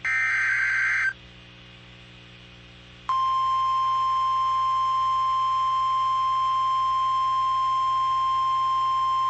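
An Emergency Alert System SAME header data burst, a harsh buzzing screech about a second long, is followed after a two-second pause by the NOAA Weather Radio 1050 Hz warning alarm tone. The alarm tone is a single loud, steady tone that starts about three seconds in and holds on without a break, signalling that a warning is about to be read.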